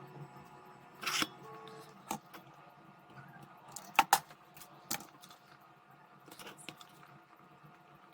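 Scattered sharp clicks and taps of small hard parts being handled, loudest a quick pair about four seconds in, with a short scrape about a second in.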